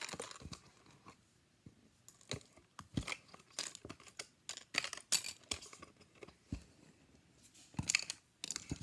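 Small plastic miniature pieces and their packaging being handled and taken out: scattered light clicks and crinkly rustles, busiest near the end.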